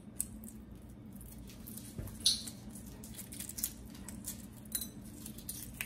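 Shell of a hard-boiled egg being peeled off by hand: faint crackling and small ticks as the shell breaks up and pulls away, with a sharper click about two seconds in.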